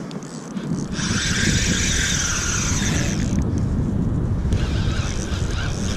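Wind gusting on the microphone as a low rumble, with a spinning reel working in two spells of a few seconds each while a hooked steelhead is played on a bent rod.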